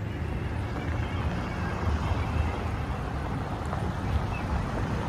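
Outdoor street ambience: a steady, uneven low rumble of wind buffeting the microphone over a general hum of street and vehicle noise.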